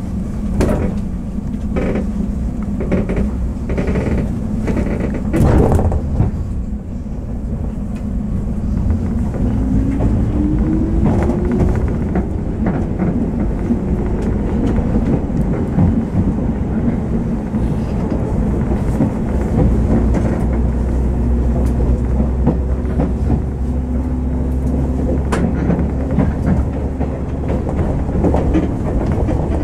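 Inside a JR West 103-series electric commuter train pulling away and gathering speed. Several knocks sound in the first few seconds, then the traction motors' whine rises in pitch about ten seconds in, over the steady rumble of the wheels on the rails.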